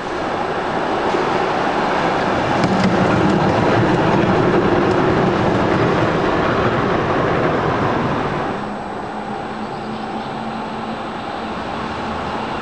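SGP E1 tram with its C3 trailer passing close by, its wheels rumbling on the street rails with a few clicks over the track. The sound swells, is loudest in the middle, and drops away about two-thirds of the way through, leaving a quieter steady hum.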